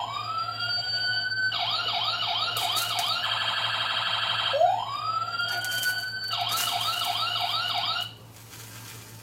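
Toy fire truck's electronic siren sound effect. It opens with a rising wail, then goes into quick repeated yelping sweeps and a fast warble, wails up again and yelps once more, and cuts off about eight seconds in.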